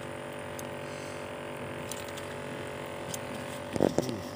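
A steady mechanical hum made of many even tones, with a few faint clicks and a brief louder sound near the end.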